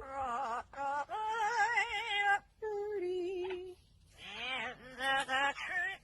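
A bird calling: a string of long, wavering pitched notes with short breaks between them.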